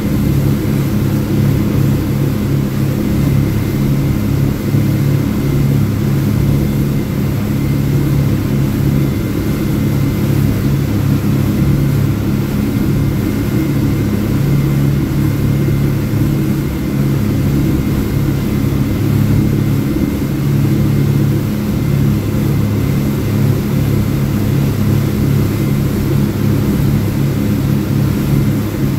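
Speedboat's outboard engines running steadily at speed, heard from inside the cabin, with the rush of the hull through the water.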